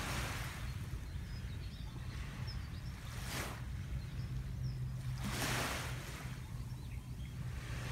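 Small waves washing gently onto a sandy beach, swelling and fading three times a few seconds apart, over a steady low rumble.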